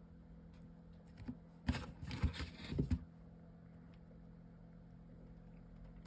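Paper and chipboard pieces rustling and knocking for about a second, as they are handled, starting near two seconds in, over a steady low hum.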